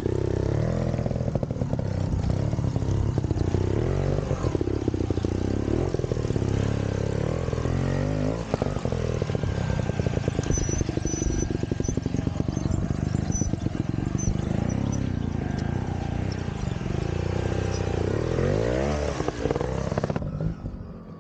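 Vintage trials motorcycle engine running with the throttle repeatedly opened and closed, revs rising and falling, with a sharp climb in revs near the end.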